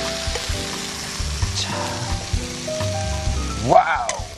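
Hot oil still sizzling in a frying pan of stir-fried mushrooms and bread just taken off the burner, as the food is spooned out onto a plate, under light background music.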